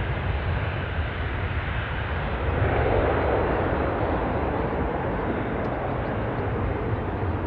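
Jet aircraft engine noise: a steady rushing rumble that swells briefly about three seconds in.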